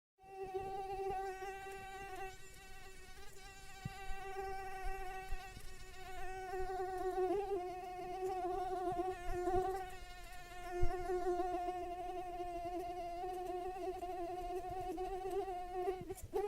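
Mosquito buzzing in flight: a steady, high-pitched whine that wavers slightly in pitch and loudness.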